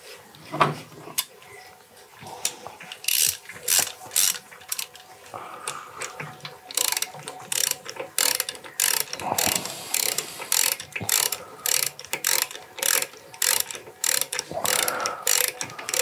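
Hand ratchet wrench worked back and forth, its pawl rasping in short quick strokes, about two to three a second, in runs with a short break after the first few.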